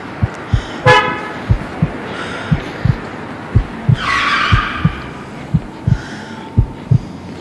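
A heartbeat thumping in lub-dub pairs about once a second, layered with street traffic: a short horn honk about a second in and a loud tyre-skid screech around four seconds in.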